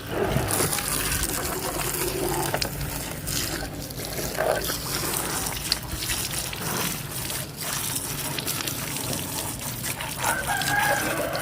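A domestic fowl calling, with one long held call near the end, over a steady background hiss.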